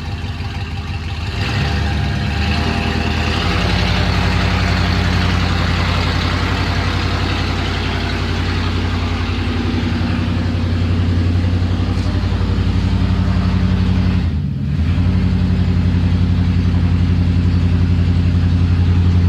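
Truck engine running steadily, its low, even engine tone getting louder about a second and a half in and dipping briefly about fourteen seconds in.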